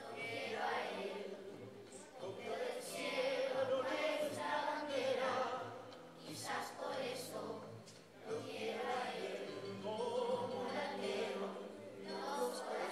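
Children's choir singing a samba song together.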